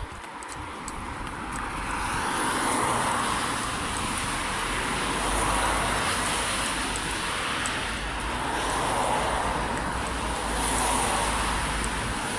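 Road traffic going by: the rush of passing cars swells and fades several times, loudest about three seconds in and again near nine and eleven seconds.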